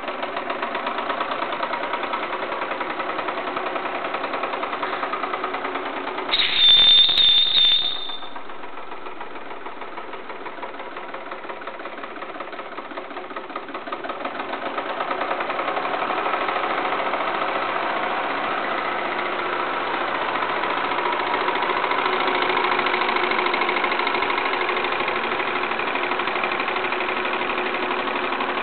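Wilesco D32 toy steam engine running under steam with a fast, even rhythmic beat. About six seconds in, a high-pitched steam whistle blows for under two seconds, the loudest sound. The engine then runs quieter and grows louder again from about fifteen seconds on.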